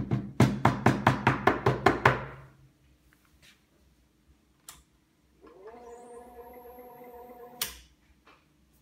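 A rapid run of about ten knocks in the first two seconds. Later, an espresso machine's pump hums steadily for about two seconds and cuts off with a sharp click.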